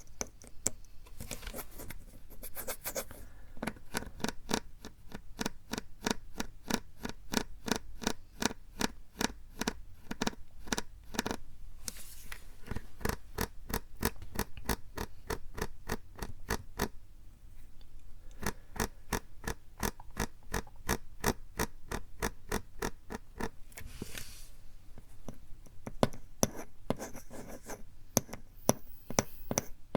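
Close-miked plastic PET drink bottle being tapped quickly with the fingertips, a few taps a second, with patches of crinkling and scratching on the plastic in between.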